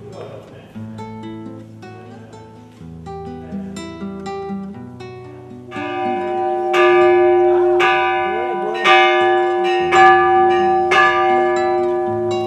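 Background music on plucked strings; about halfway through, a church bell begins ringing over it, struck about once a second, each stroke ringing on into the next.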